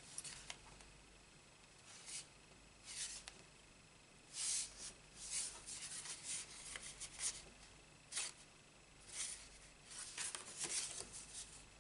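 Sheets of card stock rubbing and rustling against each other as they are handled and the glued panel is lined up on the card base: a scatter of short, soft scrapes, busiest through the middle.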